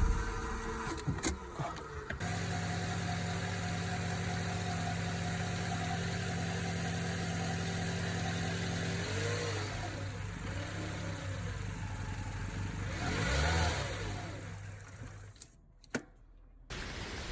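Nissan Micra K11's engine idling steadily, then revved in a few short blips that rise and fall, before the sound dies away near the end.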